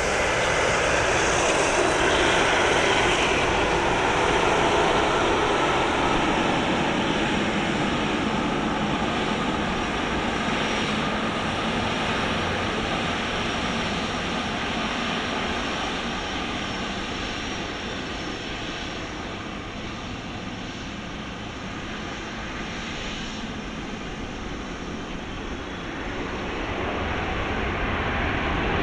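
Jet airliner engines, a steady rushing hum that is loud at first, fades slowly, then grows louder again near the end as an aircraft comes closer.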